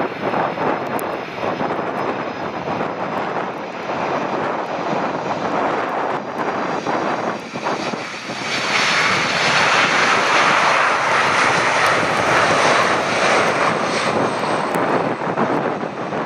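Boeing 767 jet landing on a flooded runway, its engines and tyre spray making a steady hiss. About eight seconds in, the sound swells and brightens into a loud rush as reverse thrust is applied, throwing water off the runway.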